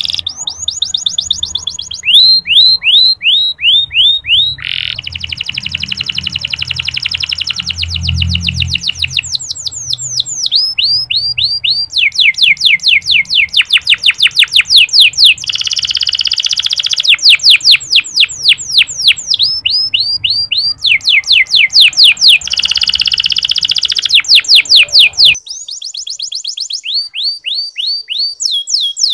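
Domestic canary singing its ngeriwik song: long rolling trills of fast repeated down-sweeping notes that shift in speed and pitch every second or two.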